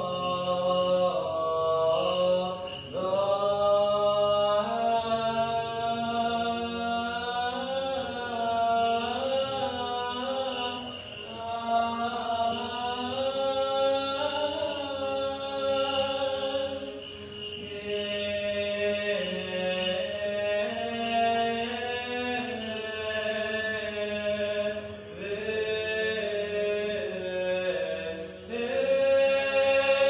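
Chanted vocal music: a slow melodic line of sung voices moving in steps over a held low note.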